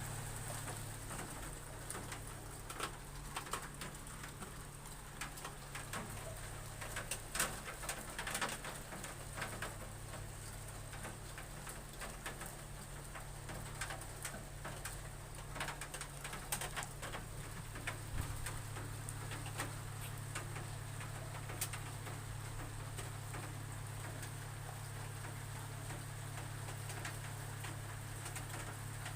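Raindrops knocking irregularly on a roof, a run of sharp taps, thickest several seconds in, over a steady low hum.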